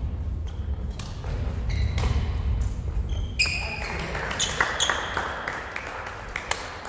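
Badminton hall sounds: scattered sharp racket-on-shuttlecock hits and short squeaks of shoes on the wooden court floor, over a steady low rumble.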